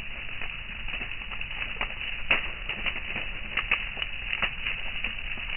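Brush fire of dry twigs crackling, with irregular sharp pops over a steady hiss; the loudest pop comes a little before halfway.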